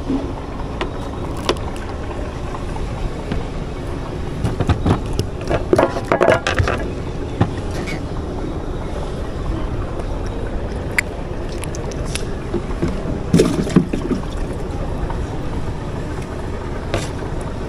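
Steady low rumble under scattered clicks and knocks of fishing tackle being handled in a small boat, busiest about five seconds in and again near thirteen seconds.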